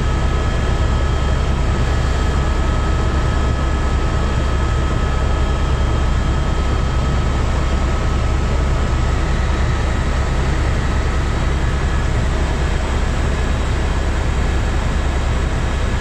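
Steady helicopter cabin noise in cruise flight: a deep, even rumble with a few faint, steady whining tones above it.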